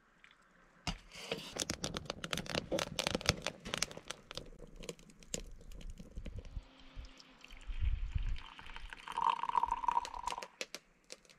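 Crinkling and rustling handling noise, like paper packaging being handled, with many sharp clicks and taps, and a short steady tone about nine seconds in.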